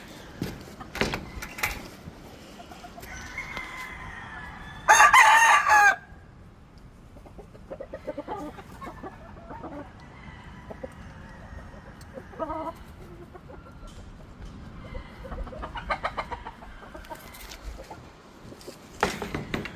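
Gamefowl roosters crowing and chickens clucking. One loud crow comes about five seconds in and lasts about a second, with shorter calls and scattered clicks around it.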